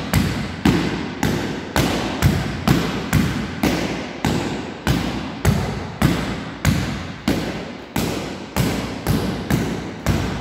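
Saber blade striking a hanging heavy punching bag in a steady series of sharp thuds, about two a second, each cut bouncing back off the bag.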